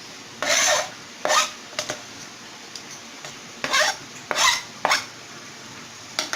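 Kitchen utensil scraping against cookware in about six short strokes, as chopped onion and green chillies are added to a pot of vegetables.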